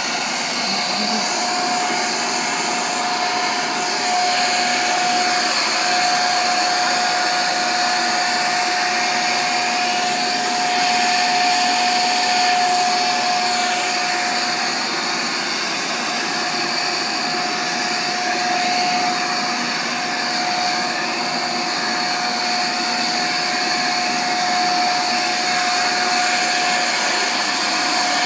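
Handheld leaf blower running steadily, a constant whine over the rush of air.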